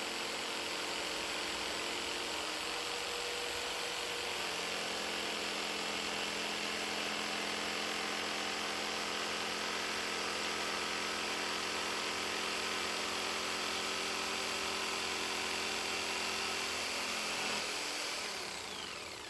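Electric jigsaw running steadily as it saws through a wooden board along a curved line, a buzzing motor with a rasping blade. Near the end it winds down, the pitch falling.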